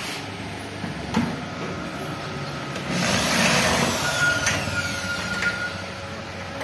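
A sharp knock about a second in, then a cordless drill runs for about a second at the steel gate and winds down with a falling whine.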